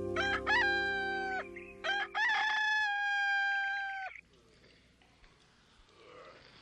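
A rooster crowing twice, each crow a few short rising notes ending in a long held note, the second crow longer. A low steady tone sounds under the first crow and stops about two and a half seconds in.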